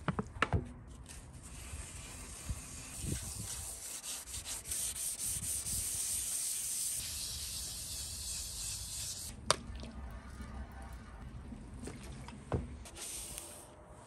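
Hand wet-sanding of a painted motorcycle fuel tank with fine wet-or-dry sandpaper on a cloth pad: a steady, gritty rubbing hiss of paper on the wet paint, strongest in the middle. A few sharp clicks come through near the start and twice later on.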